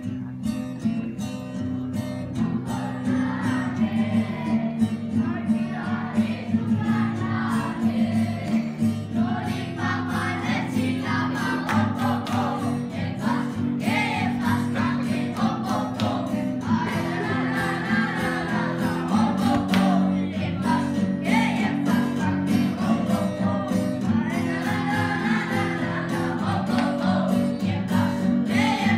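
Acoustic guitar accompanying a group of voices singing a song together.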